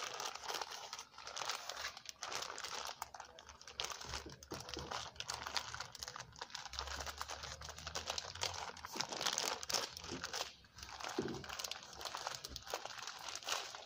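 Plastic-wrapped party table cover packet being crinkled and squeezed in the hands: a continuous, irregular crackling, with a brief lull about ten and a half seconds in.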